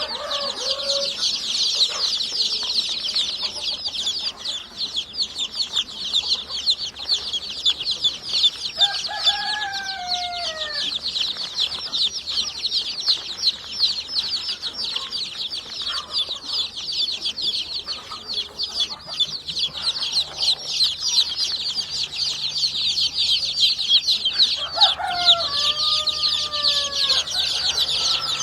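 A brood of chicks peeping continuously in a dense, high-pitched chorus. A hen gives lower, falling calls twice: about nine seconds in and again near the end.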